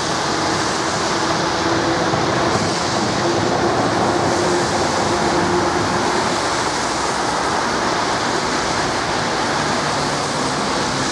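City street traffic on a wet road: a steady hiss of car tyres on wet asphalt, with a passing tram's hum dying away about halfway through.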